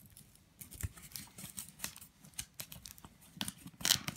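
Paper envelope being handled and opened by hand: irregular rustling, scratching and small clicks, with a louder crackle near the end.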